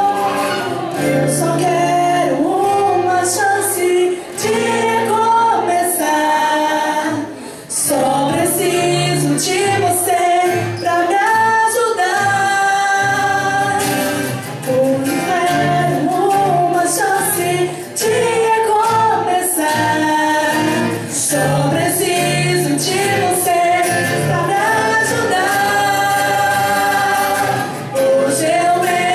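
Christian song sung by voices over instrumental accompaniment, a gospel-style vocal performance.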